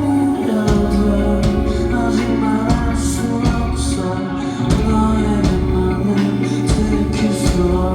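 Live rock band music: drums with regular cymbal hits over bass and guitars, with some singing.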